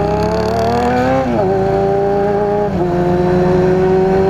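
Motorcycle engine accelerating under way: its pitch climbs steadily and dips briefly twice, about a second in and again near the middle, as it shifts up through the gears.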